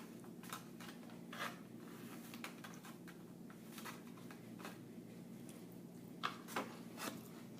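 Eating sounds: scattered short, soft clicks and smacks of chewing and handling food, a few seconds apart, over a steady low hum.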